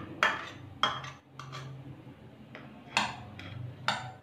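Metal fork scraping mashed boiled potato out of a small ceramic bowl into a glass mixing bowl, with several sharp clinks of metal on china and glass and softer scraping between them, over a low steady hum.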